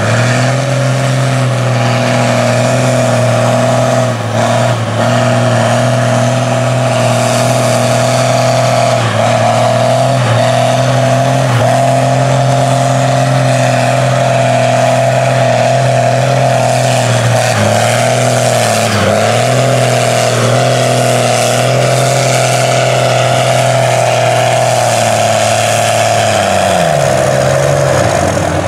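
Diesel engine of a lifted Dodge Ram mud truck held at high, steady revs under full throttle as the truck churns through deep mud. The revs dip and pick back up a few times past the middle and once more near the end.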